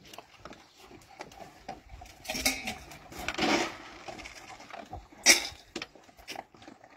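Beagles eating at a wooden feeding trough: scattered crunching, clicks and knocks, with two louder noisy bursts about two and three and a half seconds in and a sharp knock a little after five seconds.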